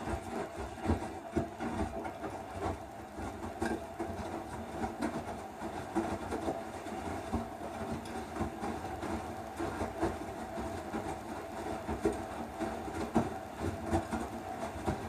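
Electrolux Eco Turbo TRW12 washing machine running, a steady motor hum with frequent irregular knocks and clicks from the moving laundry and drum.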